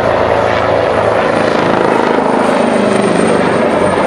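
AgustaWestland HH-139 twin-turbine military helicopter flying past close by: a loud, steady, rapid rotor beat over the turbine noise.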